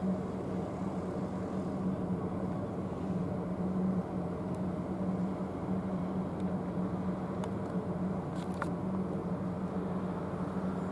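Steady mechanical hum: a constant low drone over an even rushing noise, with a few faint clicks near the end.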